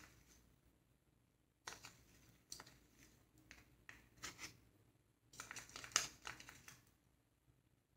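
A metal spoon scraping thick condensed milk out of a plastic measuring cup: faint, scattered scrapes and light clicks, with a denser cluster about six seconds in.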